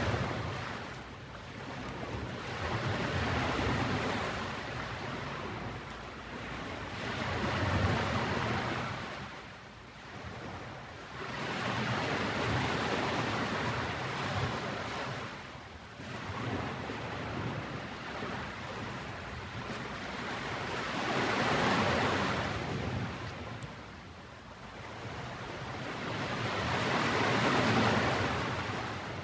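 Ocean surf on a beach: waves breaking and washing up, the rush swelling and fading every few seconds.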